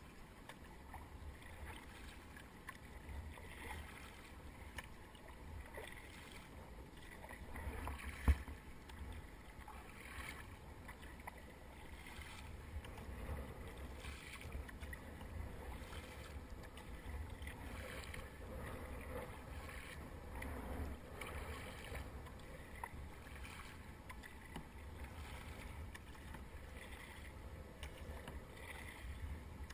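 Kayak paddle strokes dipping and splashing in the water, with water lapping along a Fluid Bamba sit-on-top kayak's hull, over a steady low rumble on the microphone. One sharp knock about eight seconds in.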